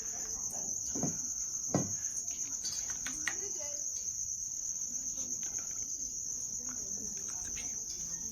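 Insects, cricket-like, chirring in a steady high-pitched drone, with a couple of soft thumps about a second in and just before two seconds.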